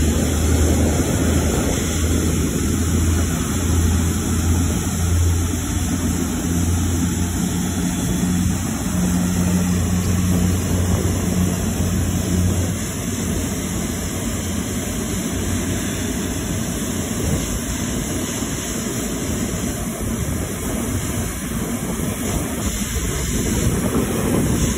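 Qantas Airbus A380's Rolls-Royce Trent 900 jet engines running at taxi power close by, a loud steady rushing noise. A low steady hum underneath stops about halfway through.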